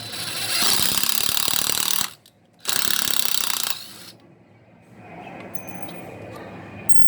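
Ryobi 14V cordless drill/driver running under the trigger in two bursts: about two seconds, a short pause, then about another second.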